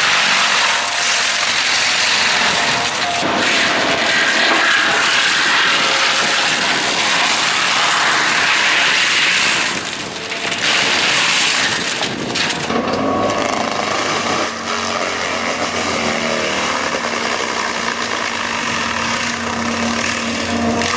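Engine-driven machinery working wood: a loud, dense machine noise with cutting and knocking. About two-thirds of the way through it changes to a different machine sound with a steady hum.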